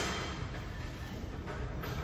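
Cable lat-pulldown machine in use: the cable running over its pulleys and the weight stack sliding on its guide rods, a steady low rattling rumble.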